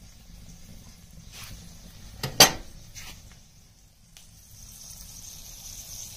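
Wood fire crackling in a cast iron cook stove's firebox, with a sharp metal clank about two and a half seconds in. From about halfway, sausage patties sizzle steadily in a cast iron skillet on the stove top.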